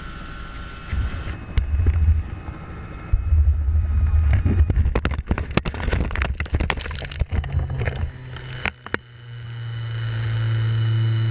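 Helicopter crash heard from inside the cabin. The steady engine and rotor sound gives way about a second in to heavy low rumbling, and then to a rapid run of hard impacts and crunches as the aircraft strikes the ground. A few separate clicks follow, and near the end a steady low hum rises.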